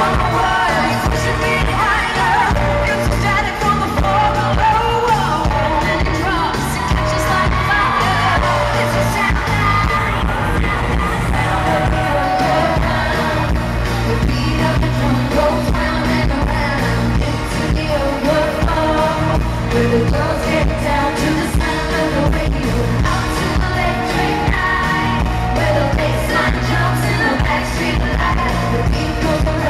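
Live pop music: a female pop group singing over a band track with a steady, pulsing beat, played loud throughout.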